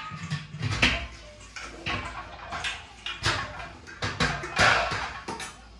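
Brass utensils being handled, knocking and clinking against each other about nine times at an uneven pace, some knocks ringing briefly.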